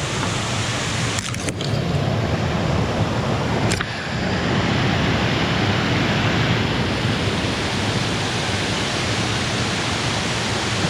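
Steady rush of creek water pouring into a plunge pool, with a few brief clicks about a second and a half in and again near four seconds.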